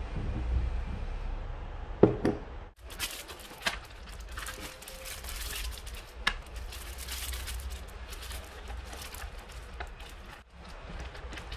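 Kitchen handling sounds: a string of short clicks and light knocks over a low steady hum, with one louder knock about two seconds in.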